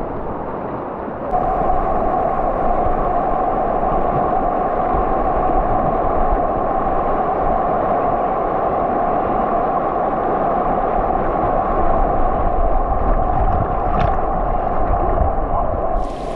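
Whitewater of river rapids rushing and splashing close around a kayak: a steady, dense rush of water that gets louder about a second in.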